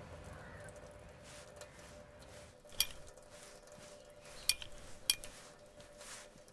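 A faint trickle of tap water fades out at the start. Then come three sharp clinks of a drinking glass: the loudest about three seconds in, and two more about a second and a half and two seconds later.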